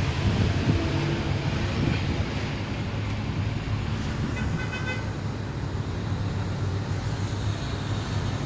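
Isuzu 6WF1 six-cylinder diesel truck engine running steadily. A short high beep sounds about halfway through.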